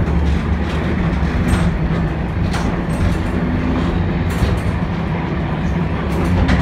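Steady low rumble of the M-24 museum tram running along the street track, heard from inside the car, with a few scattered clicks and knocks.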